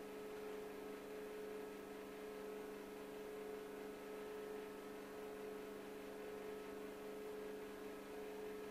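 A steady hum made of a few held tones, one standing out above the rest, over a faint hiss.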